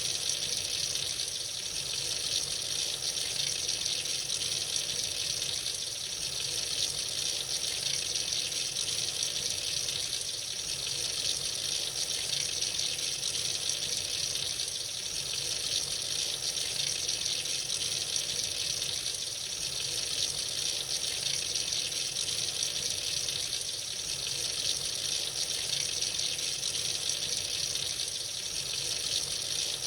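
Tap running freely into a sink, a steady hissing splash of water with slight slow swells in loudness.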